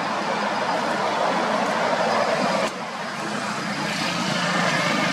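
Steady road traffic noise. It drops abruptly about two and a half seconds in, then swells again.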